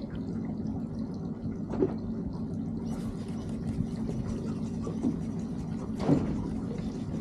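Water sloshing and lapping against the hull of a small boat, over a steady low hum, with brief splashy knocks about two seconds in and again about six seconds in.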